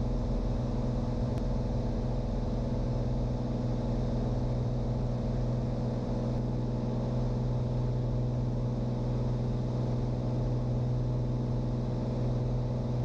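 Cirrus SR22 light aircraft's six-cylinder piston engine and propeller running at a steady setting, a constant low drone heard in the cockpit.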